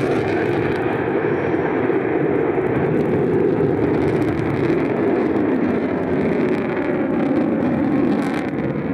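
F-35A Lightning II's single Pratt & Whitney F135 jet engine in afterburner as the fighter climbs away: loud, steady jet noise.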